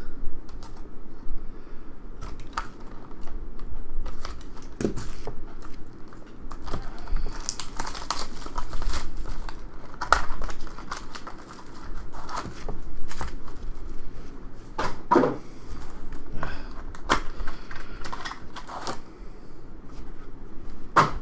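Trading-card pack wrappers crinkling and tearing open, with scattered light clicks and rustles.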